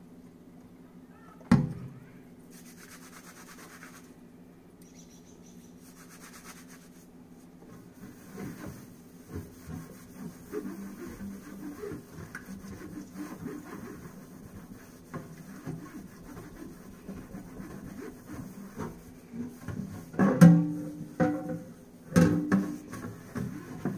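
Netted nylon dish cloth scrubbing a greasy metal baking sheet in a stainless steel sink: irregular rubbing strokes from about eight seconds in, with a few louder knocks of the pan near the end. A single sharp click about a second and a half in.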